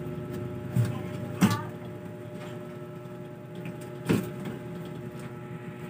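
A few short knocks and clatters of hollow plastic as a tabletop made from plastic gallon containers is handled and set on its legs. The sharpest is just after four seconds, over a steady background hum.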